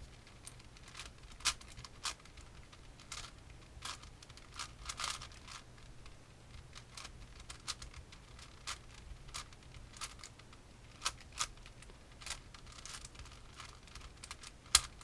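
Plastic puzzle cube being turned by hand: an irregular string of sharp plastic clicks and clacks as layers snap round, sometimes in quick bunches, with one louder clack near the end.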